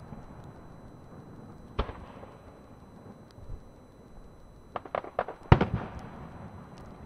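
Aerial firework shells bursting: one sharp bang about two seconds in, then a quick run of cracks and the loudest bang at about five and a half seconds, each trailing off afterwards.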